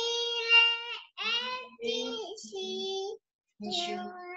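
A child's voice singing a simple song in held, steady notes, phrase by phrase, with a short pause about three seconds in.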